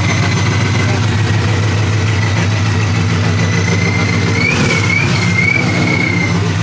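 Car engine idling steadily, with a thin high tone above it that wavers for a couple of seconds near the end.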